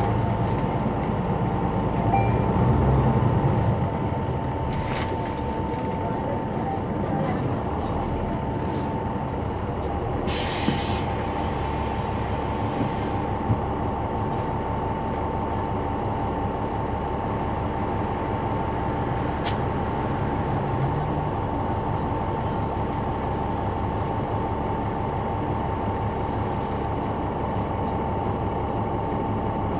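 Caterpillar C9 ACERT diesel engine of a 2004 Neoplan AN459 articulated bus, heard from the back of the bus, running with a steady drone and a constant high whine. A short burst of air hiss comes about ten seconds in.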